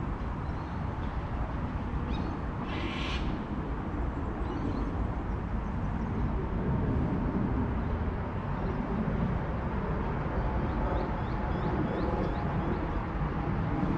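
Outdoor ambience with a steady low rumble, a short harsh bird call about three seconds in, and a quick series of small rising bird chirps near the end.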